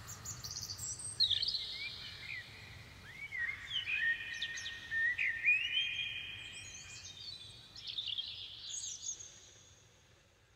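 Birds chirping and whistling, several overlapping calls with quick rising and falling notes, fading out near the end.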